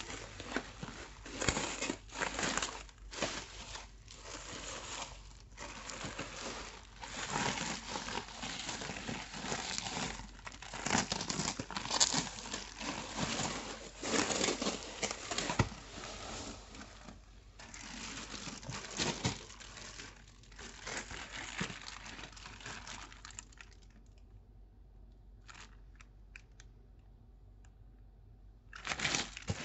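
Bubble wrap and thin clear plastic packaging crinkling and rustling in irregular bursts as hands unwrap it. It goes quieter for several seconds near the end, with a few small clicks, and the crinkling then starts again.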